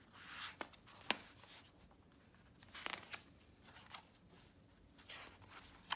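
Hardcover picture book being opened and its pages turned by hand: faint paper and cover swishes, with one sharp tap about a second in.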